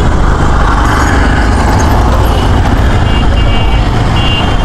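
Bajaj Pulsar NS160's single-cylinder engine running with street traffic around it: a loud, steady low rumble of engine and road noise.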